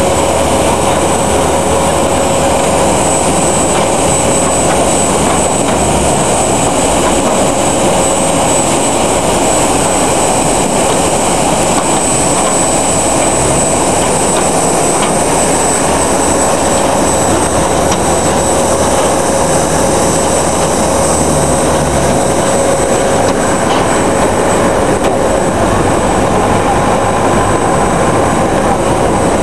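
Loud, steady jet-aircraft whine: a rushing noise carrying a high whistle and a lower steady tone.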